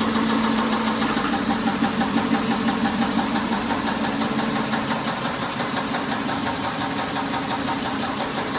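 Mercedes-Benz S500 W140's 5.0-litre V8 running steadily with a rapid, even knocking from inside the engine, a sign of internal engine damage: the owner calls the engine knocked.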